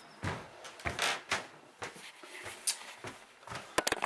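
Handling noise: a series of short knocks, bumps and clicks as the camera is carried and set down on a desk, with a quick run of clicks near the end.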